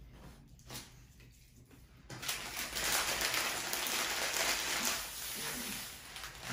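Paper burger wrapper rustling and crinkling as it is handled, starting about two seconds in and running for about four seconds.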